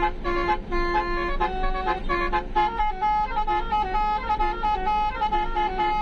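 Indonesian multi-tone 'telolet' bus horn playing a tune, its notes switching in quick steps with no pause.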